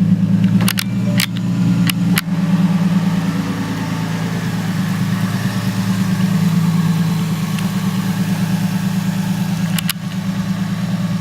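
Lexus IS300's 2JZ-GE inline-six idling steadily through a freshly installed DNA bolt-on aftermarket exhaust, a quiet, clean tone. A few sharp clicks sound over it.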